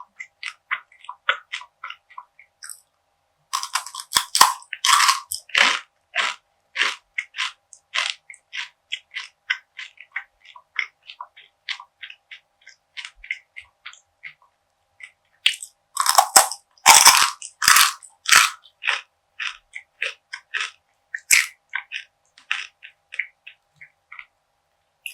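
Crunchy perilla seed brittle (deulkkae gangjeong) being bitten and chewed close to the microphone. Two spells of loud crunching bites come about 4 seconds in and about 16 seconds in, with a steady run of crisp chewing crackles between them.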